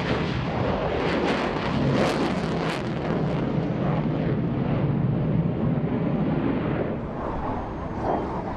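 Loud, rushing jet noise from a General Dynamics F-111's twin TF30 afterburning turbofans as it takes off and climbs away, with a rippling crackle in the first few seconds, easing off about seven seconds in.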